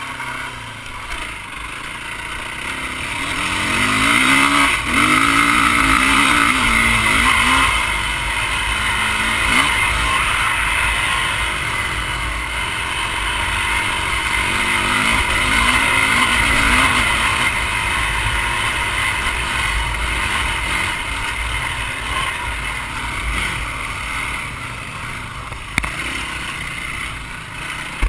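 Dirt bike engine running under the rider, its pitch rising and falling as the throttle is worked, strongest a few seconds in and again in the middle. A steady rush of wind and trail noise is on the helmet-camera microphone.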